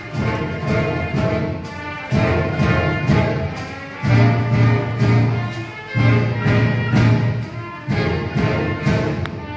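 Student concert band of clarinets, saxophones and brass playing with a strong beat. A loud chord hits about every two seconds, with the bass holding a low note under some of them.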